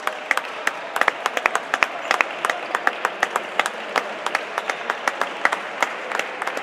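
Basketball spectators applauding, with close-by hand claps standing out sharply, several a second, over the clapping of the crowd.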